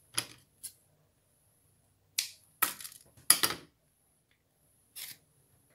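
Short crinkling, crackling handling noises from lace and sewing materials being worked by hand, about six separate bursts, the loudest about three seconds in.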